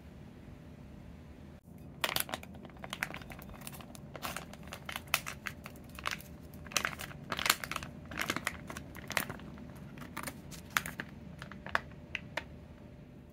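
Foil retort pouch of keema curry crinkling in the hands as it is handled and squeezed out: a dense run of sharp crackles that starts about two seconds in and goes on for about ten seconds.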